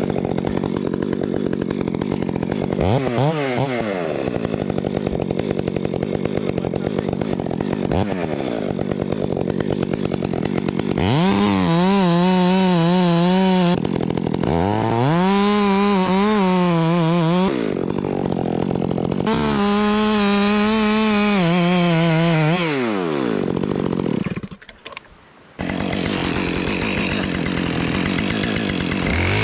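Chainsaw cutting a face cut (notch) into dead red oak. It idles with a few quick throttle blips, then runs at full throttle through three cuts of two to three seconds each, its pitch wavering under load and dropping back to idle between them. It dips briefly to quiet about three-quarters of the way through.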